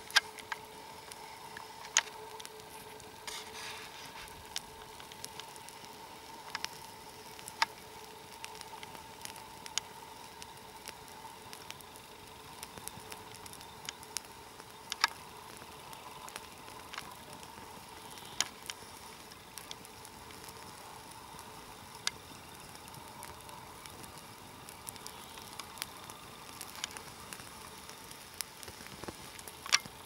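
Scattered sharp clicks and snaps, one every second or few seconds at irregular intervals, over a steady faint hiss.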